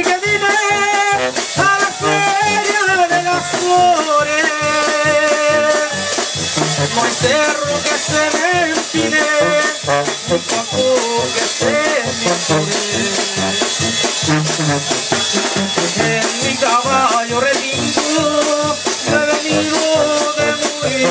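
Live tamborazo banda playing an instrumental passage: bass drum with cymbal keeping a steady beat, a sousaphone bass line, and brass carrying the melody.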